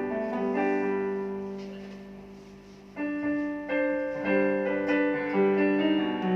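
Piano accompaniment playing chords. A held chord fades away over the first three seconds, then new chords come in about three seconds in and change every half second or so.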